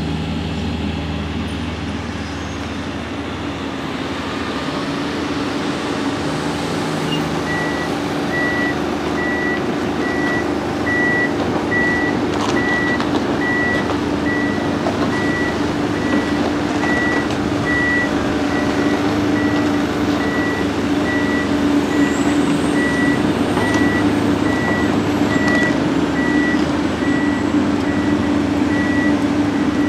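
Tracked hydraulic excavator's diesel engine running steadily, with a high-pitched warning alarm starting about eight seconds in and beeping regularly, about once or twice a second.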